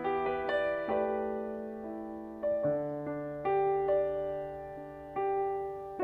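Slow solo piano intro to a ballad: chords and single notes struck every one to two seconds, each left to ring and fade.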